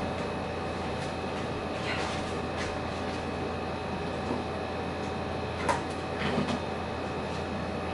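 A steady mechanical hum with a few short clicks and knocks, from objects handled at a desk, about two seconds in and in a cluster near six seconds.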